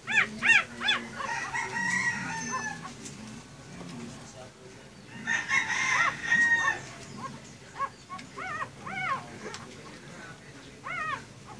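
Newborn puppies squealing and whimpering in short, high, rising-and-falling cries that come in quick clusters, loudest at the start. About five seconds in, a longer, louder call is heard for a second or so.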